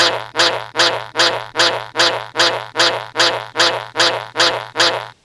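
A short sound sample looped in a rapid, even stutter, about fourteen repeats at roughly two and a half per second, each starting sharply and dying away, over a steady low hum: a digitally edited sound-effect loop that cuts off abruptly.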